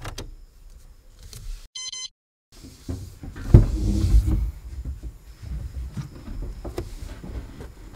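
Taxi's rear door being opened and a passenger climbing into the back seat: knocks, rustling and a louder thump in the car's cabin about three and a half seconds in. A short electronic beep comes about two seconds in, followed by a brief silence.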